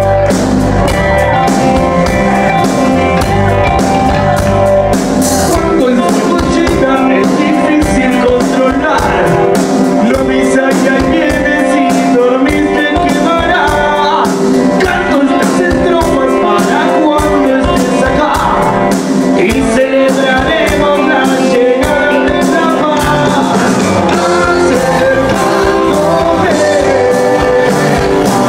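Rock band playing live, with electric guitar, bass guitar and drums, and a voice singing over them.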